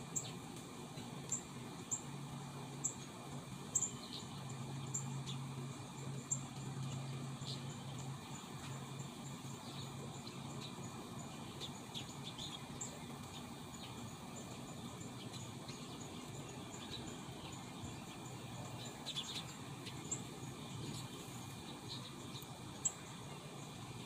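Birds chirping with short high notes repeated every second or so, over a steady high insect trill. A faint low hum sits underneath for the first third or so.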